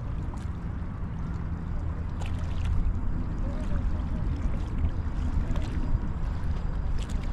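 Low, steady drone of a motorboat engine out on the bay, with faint scattered clicks over it.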